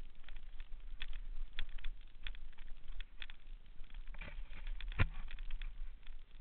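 Mountain bike rolling fast over rocky, gravelly singletrack: irregular clicks, rattles and knocks from tyres on loose rock and the bike's parts, with one heavier knock about five seconds in, over a low steady rumble.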